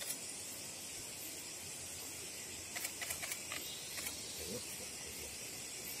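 Steady high-pitched outdoor hiss, with a short cluster of faint clicks and rustles about three seconds in.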